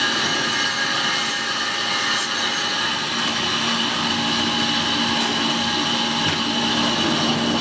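Butcher's band saw running with a steady whine as its blade cuts through a bone-in dry-aged beef short loin into porterhouse steaks.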